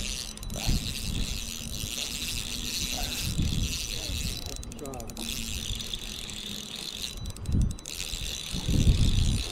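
Fishing reel being wound in, its gears clicking, with a low steady hum underneath at times.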